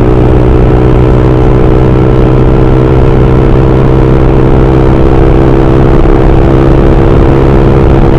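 Motorcycle engine and exhaust running loud and steady at a constant speed while riding, the pitch holding level throughout.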